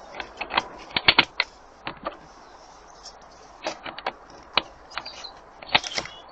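Sharp mechanical clicks and knocks from handling an air rifle, a quick run of three about a second in and others scattered, as the empty magazine comes out to switch to the single-shot loader.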